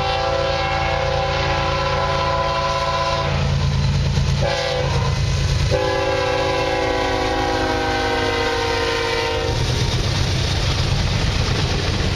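CSX ES44AC freight locomotive's multi-chime air horn sounding a long blast, a short blast, then another long blast: the close of the long-long-short-long grade-crossing signal. Under it the locomotive's diesel engine rumbles steadily, and after the horn stops the freight cars roll past.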